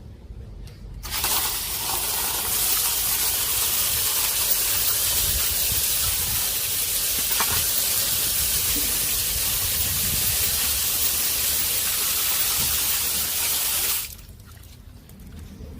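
A steady, loud hiss that starts suddenly about a second in and cuts off suddenly near the end, about thirteen seconds long.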